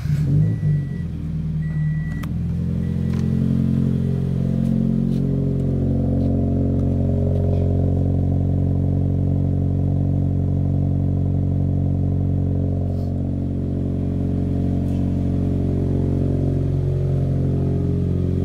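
Scion FR-S's 2.0-litre flat-four boxer engine catching with a short flare, then settling to a steady idle through a muffler-delete exhaust. The engine is already warm, not a cold start.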